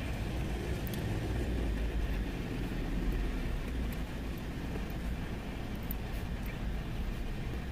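Steady low vehicle rumble heard inside a parked minivan's cabin, with a few faint clicks.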